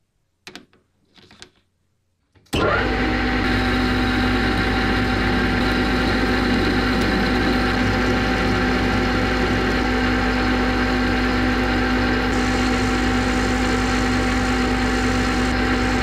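A workshop machine's electric motor switched on about two and a half seconds in, then running steadily with a constant hum. A couple of faint handling sounds come just before it starts.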